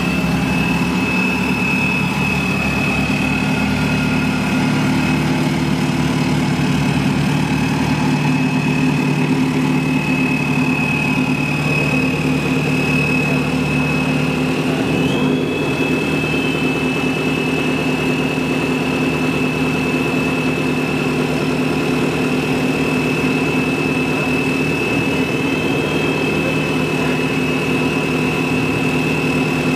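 Race-built Isuzu D-Max turbo-diesel pickup engines idling steadily, with a steady high whine above them that rises briefly twice.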